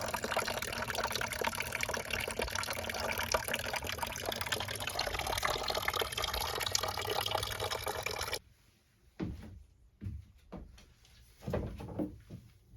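A steady rush of liquid that cuts off suddenly about eight seconds in, followed by a few light knocks.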